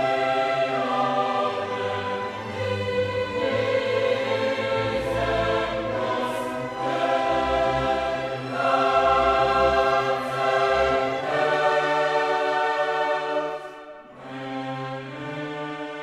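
Slow classical music, held choral and orchestral chords that change every second or two; it drops in level about 14 seconds in, then carries on more quietly.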